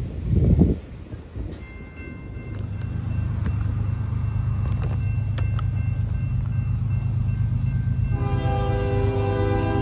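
Approaching CSX freight train: the low rumble of its diesel locomotives builds while its horn sounds faintly at first, then loud and steady from about eight seconds in. A brief loud rush comes about half a second in.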